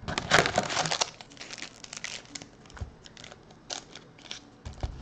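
Foil-wrapped Topps Chrome trading card packs crinkling and rustling as they are handled and stacked. The crinkling is loudest in the first second, then comes in short scattered rustles and ticks.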